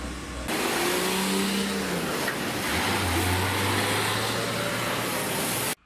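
A fire engine drives past on a wet road, its engine running under a loud hiss of tyres on wet asphalt, the engine note shifting in pitch as it passes. The sound starts suddenly about half a second in and cuts off abruptly near the end.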